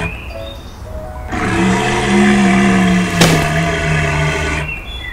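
Animal-style growling roar sound effect voiced for a toy Velociraptor: one rough, pitched call about three seconds long that starts a little over a second in, with a sharp click near its end.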